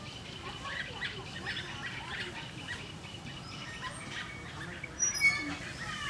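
Flock of small songbirds chirping and calling in quick, overlapping short notes. A thin, steady high tone sounds for the first half, and a louder, sharp, high call comes about five seconds in.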